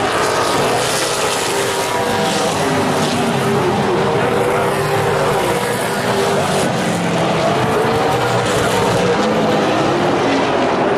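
Super Late Model stock car V8 engines at racing speed on a short oval, running close together, their pitch rising and falling through the turns.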